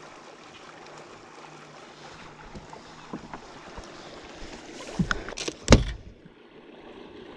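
Faint steady water and wind noise around a small boat, then a few sharp knocks and thumps on the boat about five seconds in, the loudest just before six seconds.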